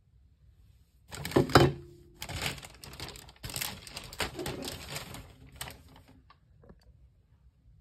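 A thin plastic shopping bag rustling and crinkling as it is handled, in a run of crackly bursts lasting about five seconds, loudest near the start. It is followed by a few light taps.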